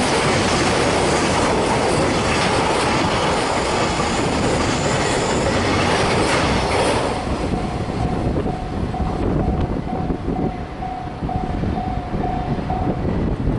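Freight train passing over a level crossing, its wagon wheels clattering over the rail joints. About seven seconds in the train clears and the crossing's warning bell rings on alone, about two strokes a second, stopping near the end.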